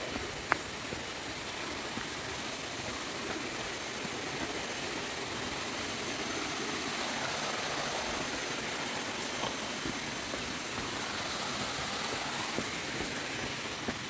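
Steady rushing forest ambience heard while walking a rainforest trail, with a thin, very high insect whine running through it and a single sharp click about half a second in.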